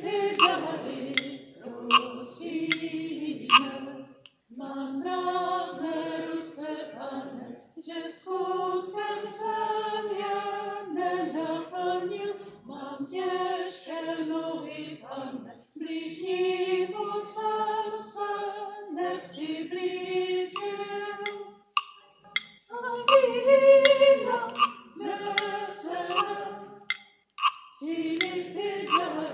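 A group of voices singing a hymn, as at the offertory of a Mass, in long held phrases with short breaths between them. A few short sharp clicks come in the first few seconds.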